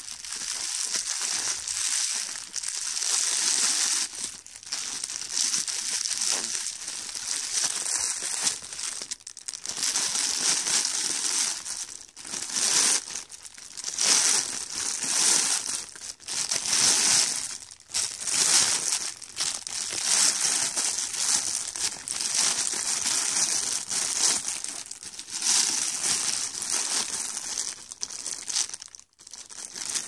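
A deflated foil balloon being crumpled and squeezed in the hands: continuous crisp crinkling, swelling and easing in surges every second or two, with a few brief lulls.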